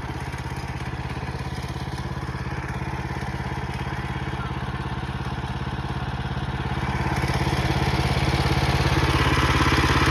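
Small gas engine of a portable sawmill running steadily, growing louder about seven seconds in.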